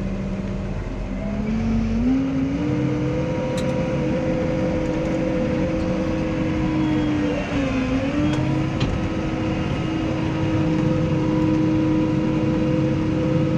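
New Holland T6.180 tractor's six-cylinder diesel engine heard from inside the cab, rising in speed over the first couple of seconds and then running steadily at the higher speed, with a brief dip about eight seconds in. The engine is being brought up to working speed as the slurry tanker's distributor is switched on and spreading begins.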